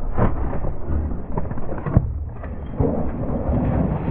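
Mountain bike riding over rough trail, heard from a camera on the rider: a rumbling wind buffet on the microphone with rattles and sharp knocks from the bike, the loudest about two seconds in.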